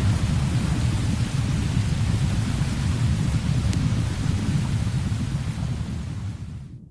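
Storm sound effect: a continuous deep thunder rumble with a hiss of heavy rain, fading away over the last second or so.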